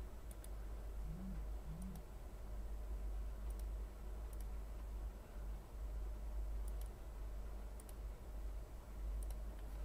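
Low steady hum with faint, sharp clicks scattered through it, a few every couple of seconds.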